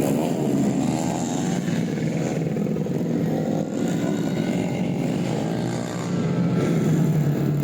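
Tuned four-stroke underbone racing motorcycle engine revving hard. Its pitch climbs near the start, holds fairly high, then climbs again toward the end.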